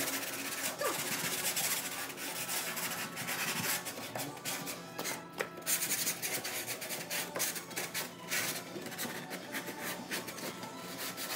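Hand sanding of the camper's wooden underside with a paper sanding block, quick back-and-forth rubbing strokes that take off the old primer before painting.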